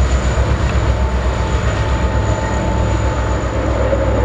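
Rear locomotive on an empty coal train passing under heavy power, a deep pulsing engine rumble over the noise of wheels on rail. A thin steady whine comes in about a second in and fades out a little after three seconds.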